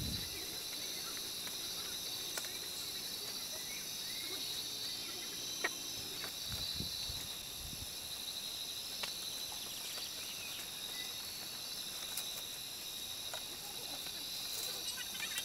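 Steady high-pitched buzzing of insects, with a few scattered light clicks or taps.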